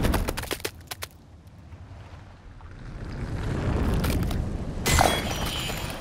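Film sound design for a surging flood of toxic oil, layered from liquid, mud and pitched fire elements: crackling that dies away in the first second, then a low rumble building, and a sudden loud hit about five seconds in.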